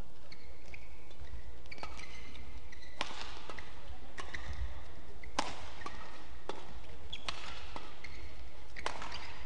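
Badminton rally: a shuttlecock struck back and forth with rackets, about eight sharp hits spaced roughly half a second to a second apart, with short squeaks of court shoes between them.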